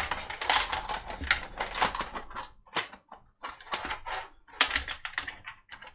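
Computer cables and connectors being handled and tucked into a PC case: irregular clicks, taps and rustles, busiest in the first couple of seconds.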